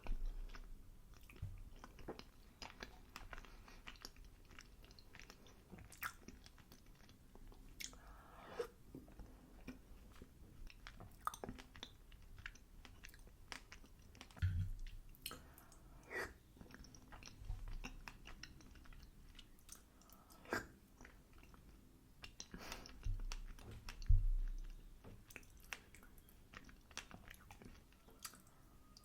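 Close-miked chewing of apple/berry crumble, with many small crunches and wet mouth clicks. A few dull low thumps come in between, the loudest about two-thirds of the way through.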